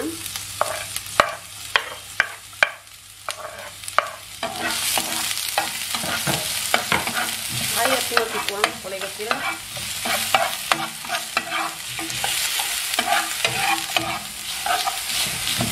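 Chopped onion frying in hot oil in a non-stick pan: a spoon knocks and scrapes as the onion goes in, and about four seconds in a steady sizzle swells up, with a spatula scraping and stirring the onion around the pan.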